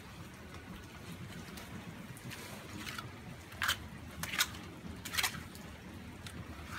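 Hands slapping and splashing in a shallow puddle of wet mud: four short wet splats in the second half, a little under a second apart.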